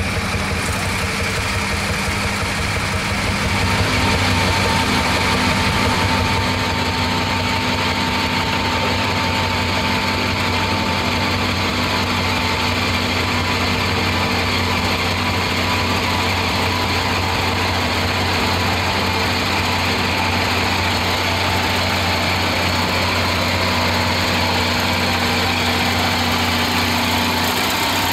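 Case 1200 Traction King's six-cylinder diesel engine running steadily under load as the tractor pulls the weight sled, a little louder for a couple of seconds about four seconds in.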